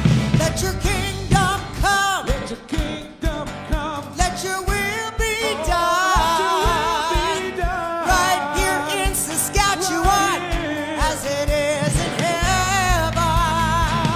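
Live worship song: a man and a woman singing at microphones over acoustic guitars and a band with drums, the voices wavering with vibrato. The low end of the band gets heavier near the end.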